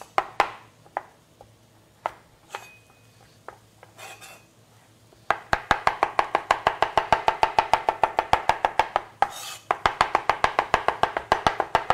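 Japanese-style kitchen knife slicing a carrot on a plastic cutting board, each cut a sharp knock. A few separate knocks come first; then, about five seconds in, a fast, even run of chops starts, with a brief break about nine seconds in.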